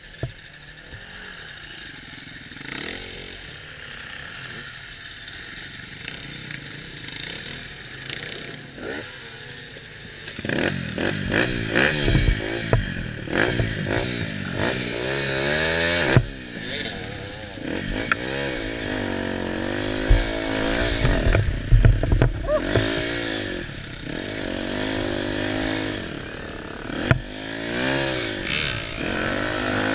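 KTM 250 EXC two-stroke dirt bike engine, fairly quiet for the first third, then revving hard with the pitch climbing and dropping again and again as the bike churns through deep sand. Several knocks and clatter come through the frame.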